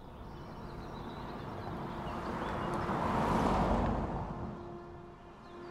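A car driving past on the street: the engine and tyre noise swells to its loudest about three seconds in, then fades away.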